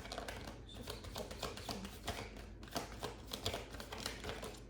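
A deck of tarot cards being shuffled and handled by hand: a rapid, irregular run of light clicks and snaps.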